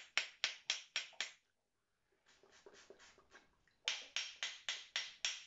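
Quick, even hand claps, about four a second, in two runs with a fainter stretch between them.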